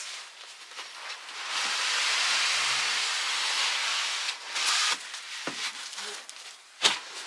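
Urethane foam case sliding up out of a close-fitting cardboard box: foam rubbing against cardboard in a steady scraping hiss for about three seconds, then a shorter scrape and a sharp knock near the end.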